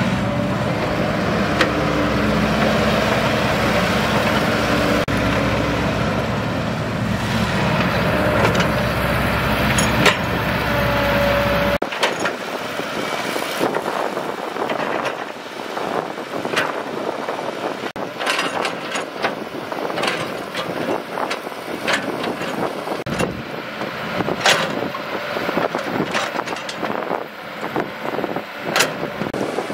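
Diesel engines of a Caterpillar tracked excavator and dump truck running steadily as the excavator loads soil. About twelve seconds in the low rumble drops away, leaving a thinner engine noise broken by many sharp clanks and knocks.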